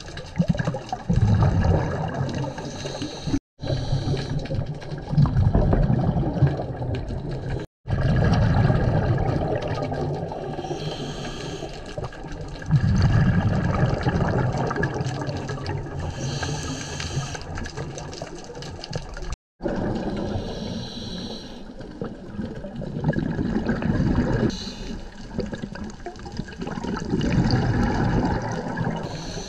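Scuba diver breathing through a regulator, heard underwater: rumbling bursts of exhaled bubbles every few seconds, with a fainter hiss of inhalation between some of them. The sound cuts out abruptly three times.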